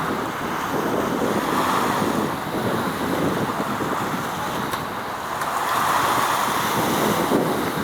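Wind blowing across the microphone: a steady, noisy rush that swells and eases every couple of seconds, with no clear engine tone.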